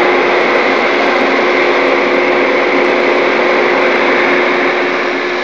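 Airflow Systems clean-air unit's blower running: a steady rush of air with a constant hum.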